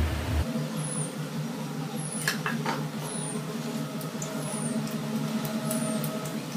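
Short, high-pitched falling chirps repeating about once a second over a low steady hum, with a few soft clicks about two seconds in.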